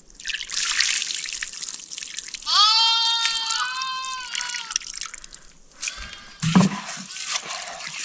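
Liquid trickling and splashing. A high, wavering bleat from livestock comes in about two and a half seconds in, and a few clattering knocks follow near the end.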